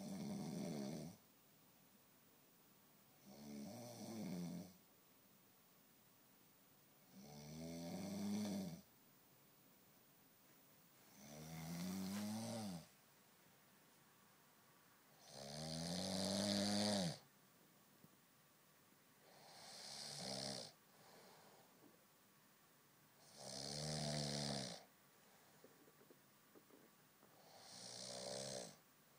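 A man snoring in a steady rhythm, with one long pitched snore about every four seconds, eight in all, and quiet gaps between breaths.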